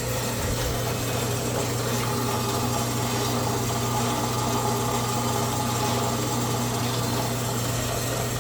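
Old machine saw running steadily, its blade working through steel exhaust tubing with a constant hum and scraping. The drive belt has just been tightened, and the saw is now cutting rather than bogging down.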